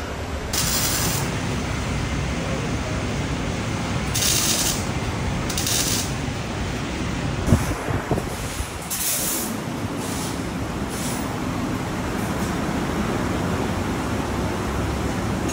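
Several short bursts of compressed-air hiss from a pneumatic air line or air tool over a steady workshop background, with a single sharp knock about halfway through.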